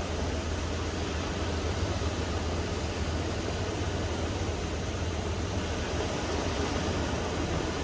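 Calm sea waves washing on a beach, a steady wash of noise without distinct breaks, with wind rumbling on the microphone.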